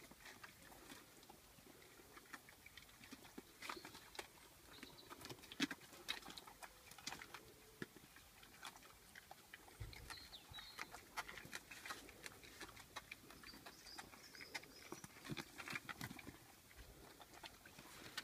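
Pigs eating: irregular chewing and crunching, a steady scatter of quiet clicks and smacks with a few louder crunches.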